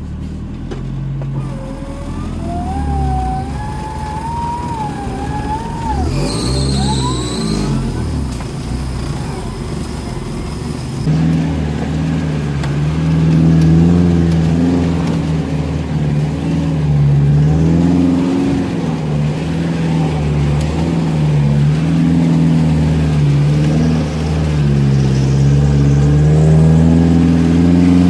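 Off-road 4x4's engine running. About ten seconds in it gets suddenly louder and keeps up a steady drone whose pitch wavers up and down as it works.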